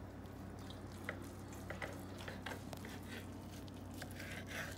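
Serrated knife sawing through a bacon-wrapped smoked meatloaf on a wooden cutting board: faint soft cutting with a few light clicks and a short rasp near the end, over a steady low hum.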